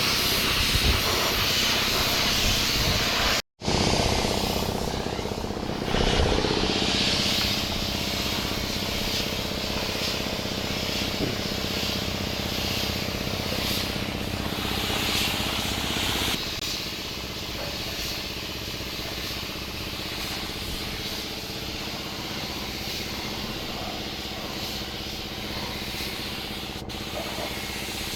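Compressed air hissing in repeated swells over the steady hum of a running machine, with a brief cut-out near the start and the hiss easing off about halfway through.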